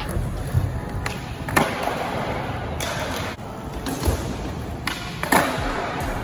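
Skateboard wheels rolling on a smooth concrete floor, with several sharp wooden clacks of the board's tail popping and the board landing during flatground tricks. The loudest clack comes a little over five seconds in.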